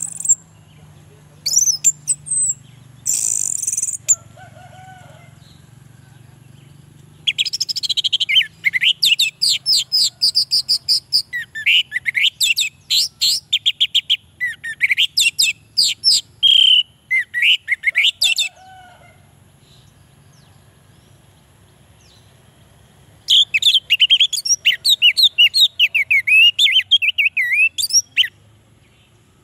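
Orange-headed thrush (anis merah) singing: a few short high calls at the start, then a long run of fast, varied notes, a pause of a few seconds, and a second run of song near the end.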